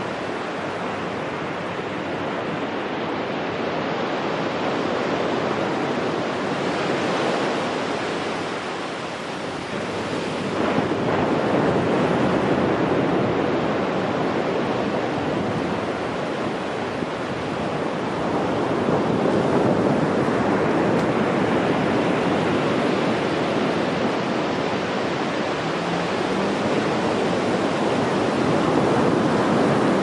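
Ocean surf breaking and washing up a sand beach: a continuous rush that swells and eases with each wave, with a sudden rise about ten seconds in and louder swells later on.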